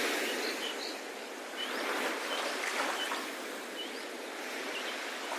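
Sea waves washing, the surf noise swelling and ebbing, with small birds chirping over it in short repeated calls.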